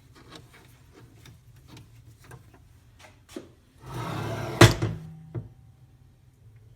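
Miter saw's slide-out deck pulled out along its runners: a sliding rumble of about a second, ending in a loud thump as it hits its stop, then a couple of lighter knocks.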